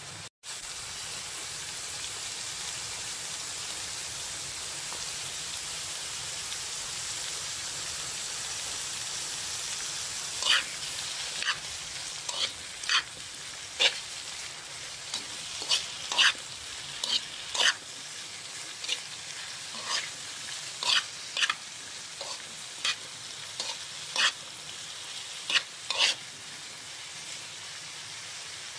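Bottle gourd, mushrooms and onion sizzling in a hot wok. About ten seconds in, a spatula starts stirring them, clacking and scraping against the wok every second or so until near the end.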